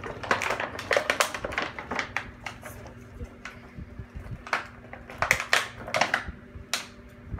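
Clear plastic packaging crinkling and crackling in irregular clusters as it is handled and pulled apart, with the loudest crackles about five seconds in.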